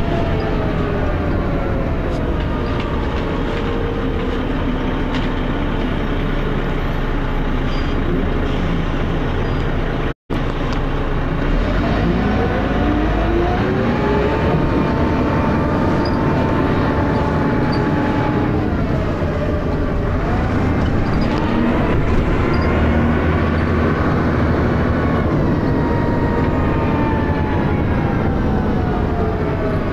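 Dennis Arrow double-decker bus heard on board under way: its engine thrash and transmission whine slide down in pitch, then climb as it pulls away about twelve seconds in. A gear change drops the pitch about twenty seconds in before it rises again, on a ZF automatic gearbox said to be slipping. The sound cuts out for a split second about ten seconds in.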